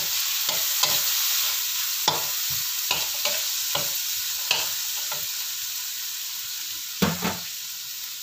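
Diced carrots, anchovies and chili paste sizzling in oil in a coated wok, a steady hiss that eases slowly, while a metal spatula stirring them scrapes and taps against the pan every second or so, with two louder knocks near the end.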